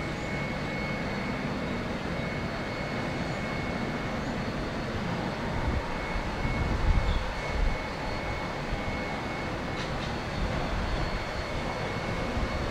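Jet airliner engines at takeoff power: a steady roar with a faint steady whine, its low rumble swelling about halfway through.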